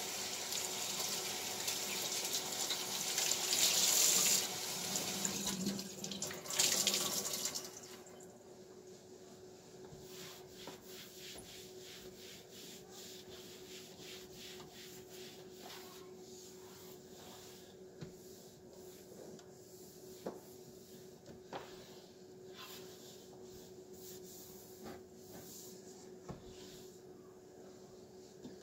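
Water from a kitchen tap runs for about the first eight seconds, with a brief break near the end. Then a cloth wipes over a glass-ceramic stovetop: soft rubbing with scattered light taps, over a faint steady hum.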